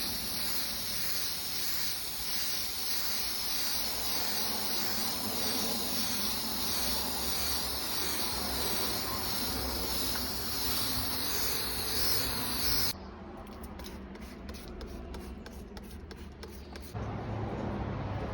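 Steady hissing noise. About two-thirds of the way through it cuts to a quieter passage with faint ticks, and a louder low rumble comes in near the end.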